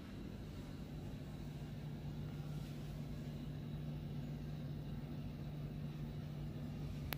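Steady low hum of a ship's machinery heard inside a cabin, a constant low drone with no breaks.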